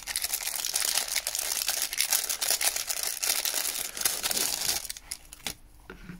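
Clear plastic bag crinkling for about five seconds as a handheld radio's antenna is worked out of it, then a few faint clicks near the end.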